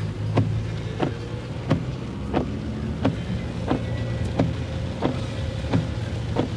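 Car windscreen wipers running fast, a regular stroke about every two-thirds of a second, over the steady hum of the car, heard from inside the cabin.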